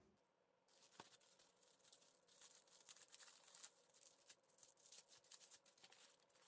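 Clear plastic sleeve on a sealed photobook crinkling and rustling in the hands, starting about a second in, with a faint click just before.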